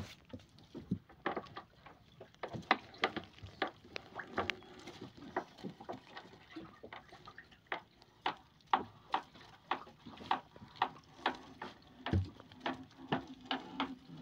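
Gill net being hauled by hand into a wooden fishing boat: a run of irregular sharp clicks and knocks, about two or three a second, as the net and its fittings come over the side.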